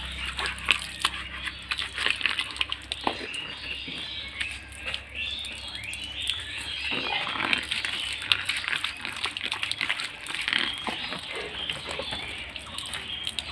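Thin stream of tap water splashing onto wet concrete while a banana leaf is rubbed by hand and rinsed under it, with irregular small rustles and clicks from the wet leaf.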